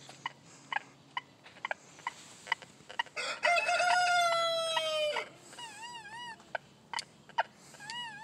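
A rooster crows once, a long call of about two seconds starting around three seconds in, the loudest sound here. Around it come short beeps from the metal detector as the coil sweeps over an iron nail and a coin, and a wavering tone repeats a few times.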